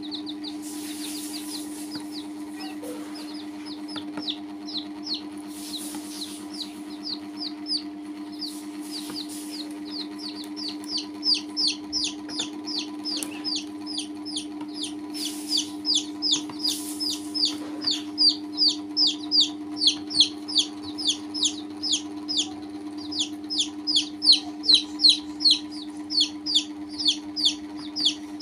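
Baby chicks peeping: a steady run of short, high, falling peeps, about three a second, getting louder after about ten seconds. A steady low hum runs underneath.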